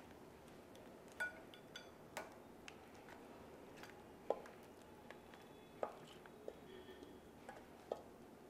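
A serving utensil clinking and knocking now and then against a glass bowl and the pan as thick crab masala is spooned out: about half a dozen short, light clinks spread through, one or two with a brief glassy ring.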